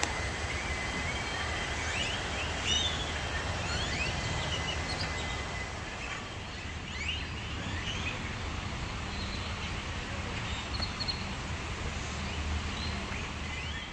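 Outdoor ambience: a steady low rumble and hiss with many short bird chirps scattered throughout, and a thin steady high tone over about the first half.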